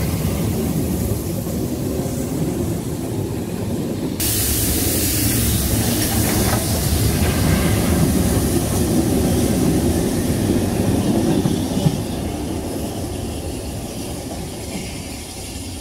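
Steam-hauled passenger train running close past at speed, coaches rumbling and wheels clattering on the rails. About four seconds in the sound jumps abruptly to a second pass, with LMS Jubilee Class 4-6-0 steam locomotive 45596 Bahamas, its tender and coaches going by, a single sharp click near the end, then the rumble fading as the train draws away.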